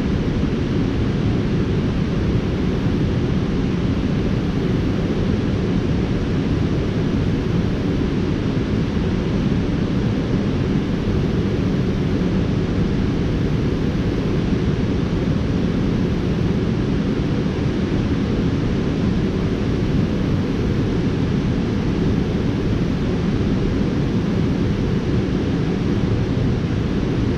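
Steady low rush of river water pouring over a low dam, an even rumbling noise that does not change.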